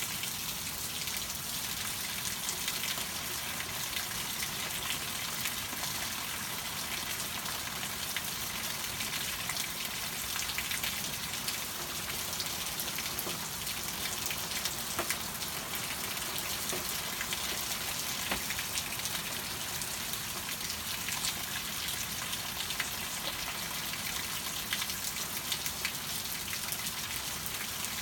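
Steady rain falling, a constant hiss scattered with many separate drop hits.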